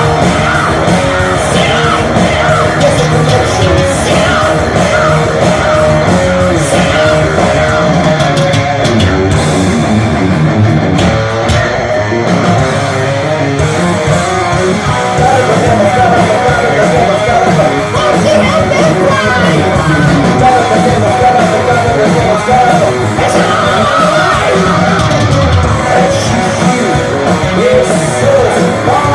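Live heavy metal band playing loud with distorted electric guitars, bass and drums, with a lead voice or guitar line over it, recorded from the audience.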